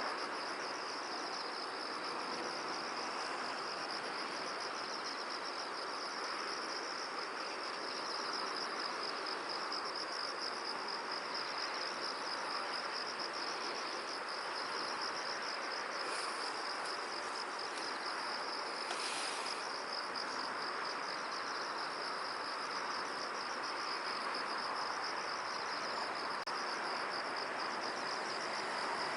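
Field insects, cricket-like, trilling steadily in a fast, even, high-pitched pulse over a steady rush of wind. A brief higher call cuts in once, about nineteen seconds in.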